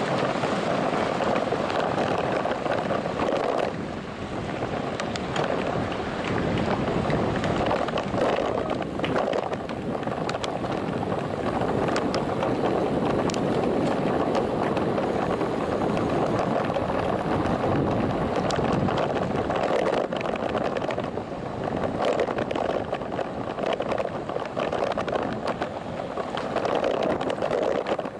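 Wind rushing over the microphone of a bicycle-mounted action camera while cycling at about 20–24 km/h: a steady rushing noise that dips and swells, with a few faint clicks and rattles.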